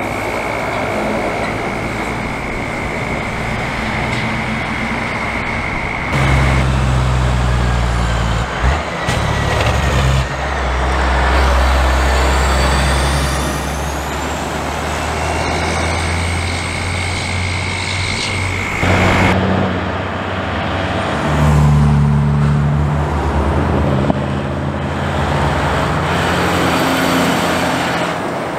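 Heavy diesel trucks towing race car transporter trailers driving past one after another, engines running under load as they pull through, with tyre noise and passing traffic.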